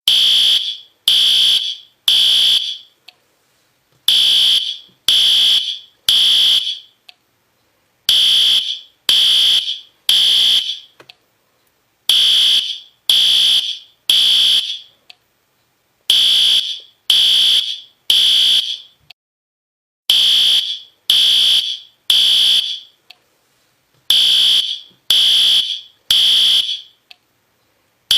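System Sensor P2R fire alarm horn strobe sounding in the temporal-three evacuation pattern: three loud, high-pitched horn beeps, a pause, then three more, repeating about every four seconds, seven times over.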